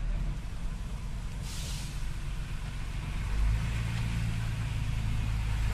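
Diesel locomotive engine running with a steady low rumble over the hiss of heavy rain. A short, sharp hiss of air comes about a second and a half in, and a low thud about three and a half seconds in.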